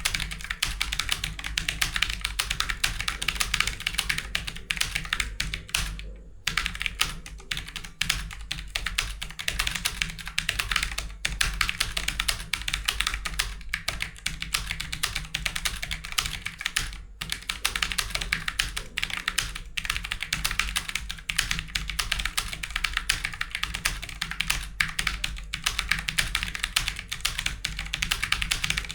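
Fast, continuous typing on a computer keyboard: a dense stream of key clicks, broken by a brief pause about six seconds in.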